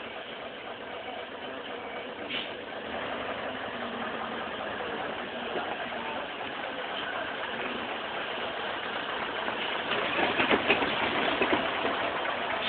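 Truck engine idling steadily, with a few louder crackling clicks near the end.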